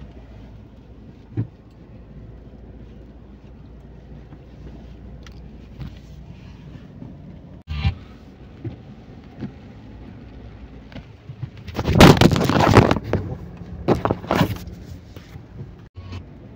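Steady low rumble of a car driving, heard from inside the cabin, with a few faint clicks. Two loud, rough bursts of noise break in near the end, the first lasting about a second and the second shorter.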